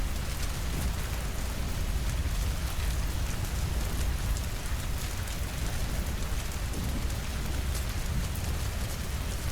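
Steady rainfall, an even hiss with fine scattered drop ticks over a constant low rumble.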